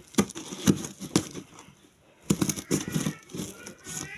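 Desk-fan packaging being handled: irregular crinkles, rustles and light knocks of plastic and cardboard, pausing briefly about halfway through.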